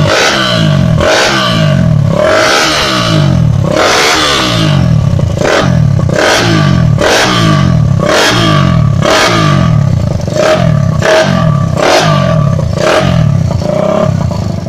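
Suzuki Satria FU's four-stroke single-cylinder engine revved in quick repeated throttle blips, about two a second, the pitch falling after each. It is breathing through a standard silencer whose baffle has been replaced with a widened sheet-metal tube and its glass-wool packing removed, giving a fiercer, racing-style exhaust note.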